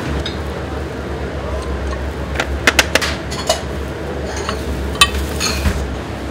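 Kitchen clatter: a few sharp clinks of dishes and utensils, bunched in the middle with one more about five seconds in, over a steady low kitchen hum.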